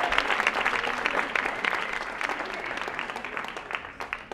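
Audience applauding, the clapping dying away gradually.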